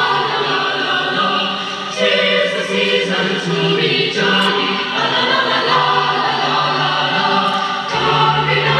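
A choir singing a Christmas carol, played back from a cassette tape on a Curtis Mathes AUK-7300E stereo cassette deck through home stereo loudspeakers.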